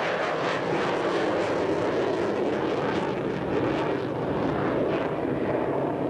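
Jet noise from an F/A-18 Hornet fighter's twin engines as it pulls up from a low pass and climbs away. The rushing noise is steady in loudness and grows duller toward the end as the jet moves off.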